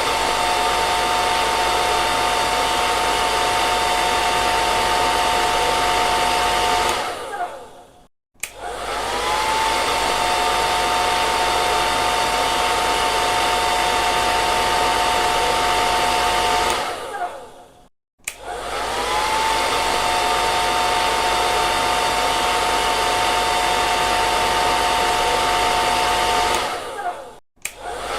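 Hair dryer blowing steadily with a steady motor whine over the rush of air. It cuts off and winds down with a falling whine three times, each time followed by a brief silence and then a click as it starts again, its whine rising before it settles.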